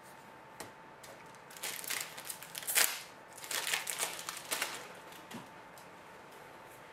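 Bowman Chrome baseball cards being handled and flipped: a few short rustles, slides and clicks, the sharpest a little under three seconds in.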